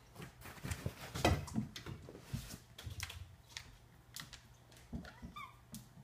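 Scuffling thumps and a run of sharp clicks and taps, like a large dog's claws on a hard floor, as a Doberman walks in beside the cat. The loudest thump comes about a second in, and two brief high squeaks come about five seconds in.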